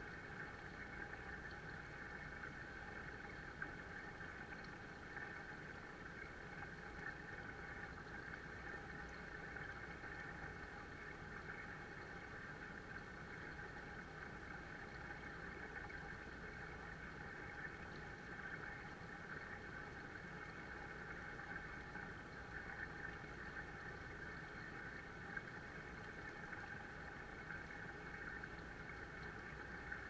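Waterfall pouring steadily into a koi pond: a continuous, unchanging rush of falling and splashing water.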